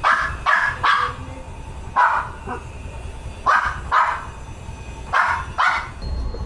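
A dog barking, about nine barks in quick groups of two or three, over a steady low rumble.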